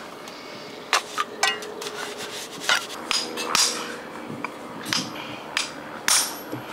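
Hammer striking a steel chisel held on a block of stone, a series of sharp metallic clinks at irregular intervals as the stone is cut.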